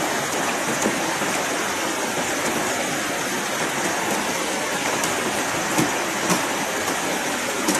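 River water rushing steadily over rocky rapids, with a few brief knocks in the second half.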